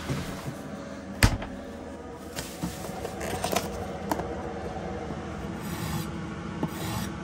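Kitchen handling sounds: a sharp knock a little over a second in, then a plastic mushroom tray crackling as it is opened, and light taps of a kitchen knife slicing mushrooms on a wooden cutting board near the end, over a low steady hum.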